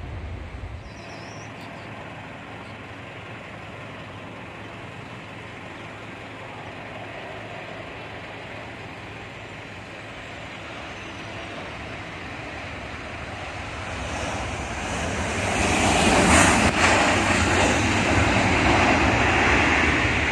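Jet engines of a narrowbody airliner rolling down the runway just after touchdown: a distant rumble that swells to a loud roar from about 14 seconds in as the aircraft comes past.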